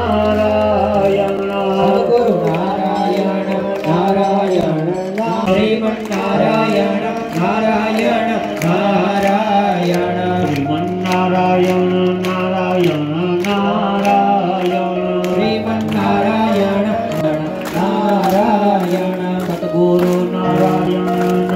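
Devotional chanting sung to a melody over a steady drone, with a regular percussive beat.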